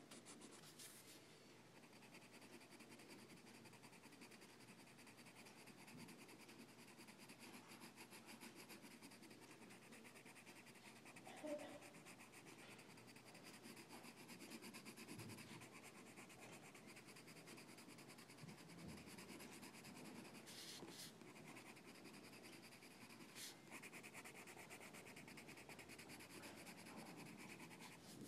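Faint, steady scratching and rubbing, as of a tool or implement working over a surface, with one short louder scrape about eleven and a half seconds in.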